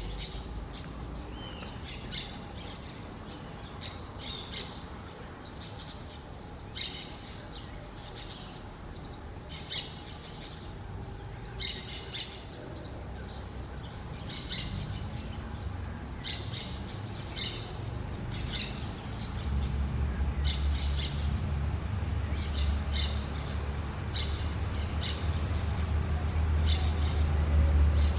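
Birds giving short, high squawking calls, repeated every second or two. A low rumble grows louder about two-thirds of the way through.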